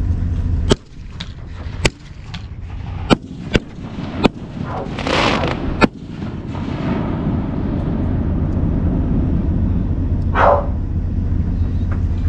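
Fireworks going off: about six sharp bangs spread over the first six seconds, with a hissing, crackling burst about five seconds in. A steady low rumble runs underneath, and a short burst of sound comes near the end.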